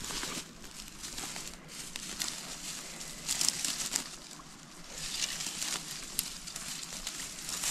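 Irregular rustling and crackling of brush and sticks being moved about, in a few uneven bursts with the odd sharp snap.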